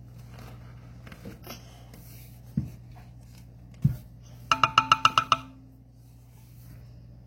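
Two dull knocks of a utensil against the batter bowl while it is scraped out. Then a fast run of about ten repeated chiming notes, lasting about a second and louder than the knocks.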